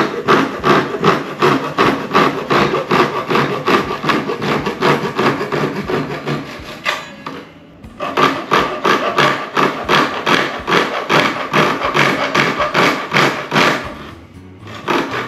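Hand saw cutting a slot into the end of a thin-wall 1¼-inch PVC pipe, in quick back-and-forth strokes about three a second. The sawing stops briefly about halfway through and again near the end.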